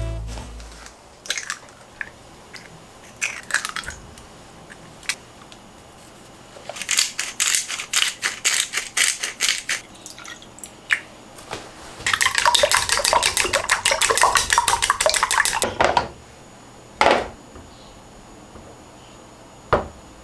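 Kitchen prep sounds. Chopsticks beat eggs rapidly against the side of a mixing bowl in a dense clatter for about four seconds, past the middle. Before that comes a run of quick sharp clicks, and after it a couple of single knocks.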